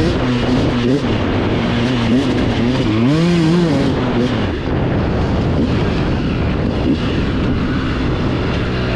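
Dirt bike engine running and revving, its pitch rising and falling, with the loudest swell of revs a few seconds in.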